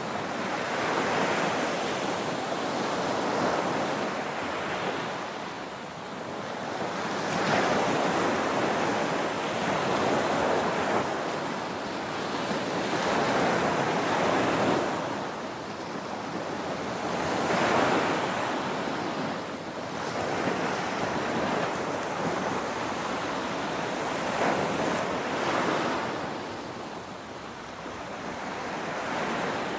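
Small waves breaking and washing up on a sandy beach, the surf swelling and fading every few seconds.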